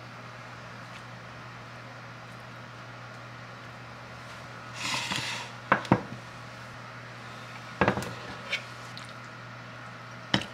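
A ceramic mug scraped and set down on a stone countertop with a pair of sharp knocks, followed by a few more single knocks and clinks of dishes and a metal ladle as soup is served.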